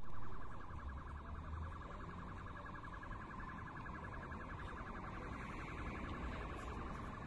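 Electronic alarm warbling in rapid, even pulses over a low rumble, starting abruptly and loudest at first.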